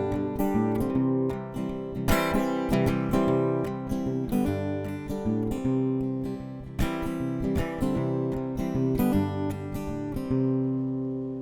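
Acoustic guitar strumming chords as the introduction to a sad song, the last chord ringing and fading near the end.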